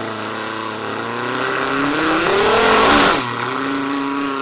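A man imitating a clapped-out old car engine with his mouth, using a voiced rolled 'r' trill. It revs up, rising in pitch and loudness to a peak about three seconds in, then drops back and holds a steady note.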